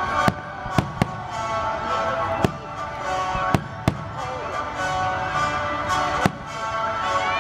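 Aerial firework shells bursting overhead: about seven sharp bangs at irregular intervals, over continuous background music.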